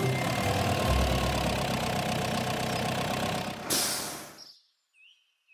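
Truck engine sound effect running steadily as a cartoon water truck drives up. It ends with a short hiss about three and a half seconds in, then dies away to near silence with a few faint chirps.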